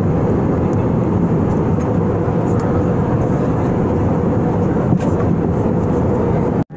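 Steady cabin noise of an Airbus A320-family jet airliner in cruise, the sound of engines and rushing air heard from a window seat, with a faint steady hum underneath. A single click comes about five seconds in, and the sound cuts out briefly near the end.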